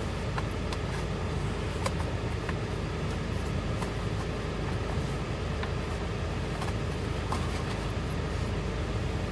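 Steady low rumble of a car, heard from inside the cabin, with a few faint clicks and crinkles from a foil-lidded takeout bowl being handled.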